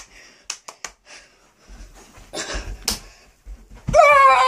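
A boy dancing: scattered taps and low thuds of feet and movement on the floor, then about four seconds in a loud, long, high-pitched yell.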